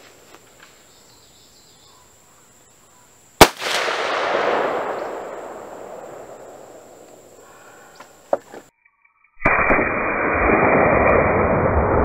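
A single loud rifle shot at a Tannerite-filled target: one sharp crack about three seconds in, followed by a long rolling echo that dies away over about three seconds. A smaller sharp crack follows several seconds later. After a cut, a steady loud noisy rumble takes over near the end.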